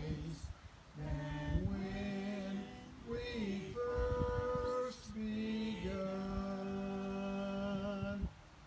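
Voices singing a slow hymn in long, held notes. The last note is held for a couple of seconds and stops near the end.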